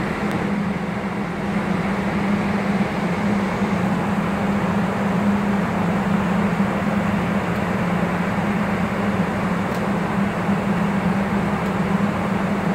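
Steady cockpit noise of an Airbus A321 in flight: an even rush of air and air-conditioning with a constant low hum, and a few faint clicks.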